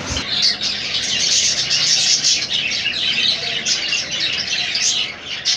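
Budgerigars chattering: a dense, continuous stream of rapid high chirps and warbles.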